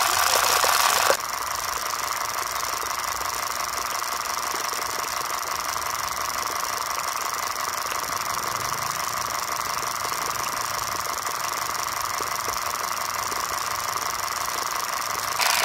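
Miniature model water pump running steadily with a light mechanical rattle, mixed with a hiss of water. It is louder for about the first second, then drops and stays even.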